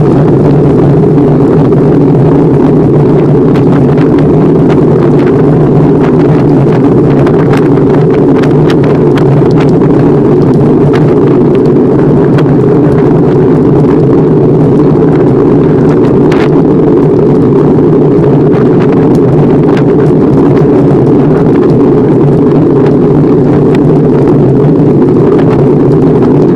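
Steady, loud rush of wind buffeting a bicycle-mounted camera's microphone while riding, mixed with tyre and frame noise and a few light ticks.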